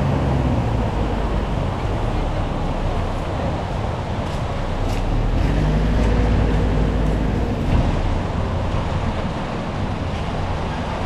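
Street traffic: the engines of passing vehicles running over a steady roadway hum, with one engine coming up louder around the middle of the stretch.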